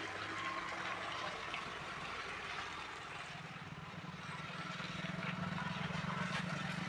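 A vehicle engine running nearby, a steady low hum that grows louder from about three seconds in, with a few faint small clicks.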